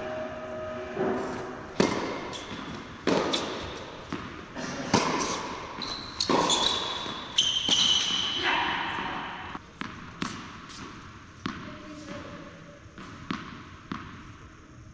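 Tennis rally on an indoor hard court: sharp pops of racket strikes and ball bounces, each echoing through the hall, with high shoe squeaks in the middle of the rally. The strikes thin out to a few softer ball bounces near the end.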